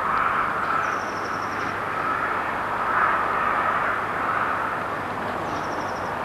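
Steady outdoor background noise, a constant hiss-like rush, with two short, high-pitched trills of rapid evenly spaced notes, one about a second in and one near the end.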